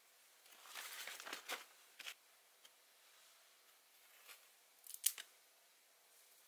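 Camping gear being handled by hand: rustling and crinkling, with a few sharp clicks or snaps. The busiest stretch is about a second in, and the loudest single snap comes about five seconds in.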